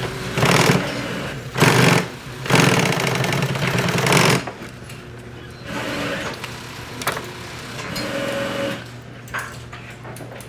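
Sewing machine stitching a nylon pistol magazine pouch in stop-start runs: three loud runs in the first four seconds, then quieter, shorter ones, over a steady motor hum.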